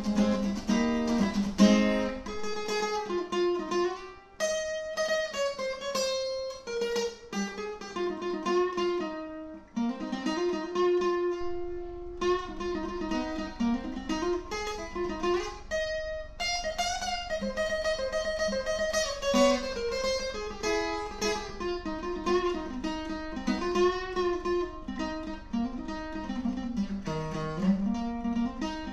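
Background music: acoustic guitar playing plucked and strummed notes under a moving melody line.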